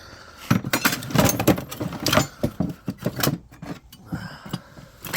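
Pieces of scrap sheet metal clattering and clinking against each other as they are sorted through by hand. The clatter is busiest in the first three seconds or so, with a few more knocks near the end.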